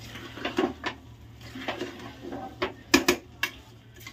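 Metal spoon stirring rice into cooked mutton keema in a pressure cooker, scraping and clinking against the metal pot, with a few sharp knocks about three seconds in.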